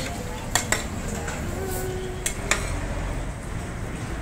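Metal spatulas clinking and scraping on a flat steel griddle as pad thai noodles are turned and scooped up: a few sharp metallic clinks, two about half a second in and two more after two seconds, over a steady low rumble.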